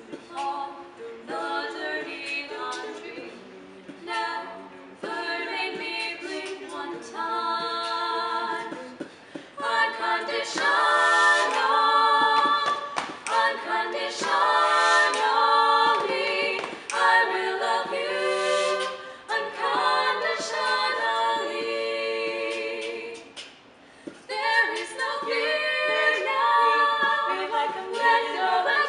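Female vocal quartet singing a cappella in close harmony, several voices holding chords together. The singing gets louder and fuller about ten seconds in, with a brief break about two-thirds of the way through.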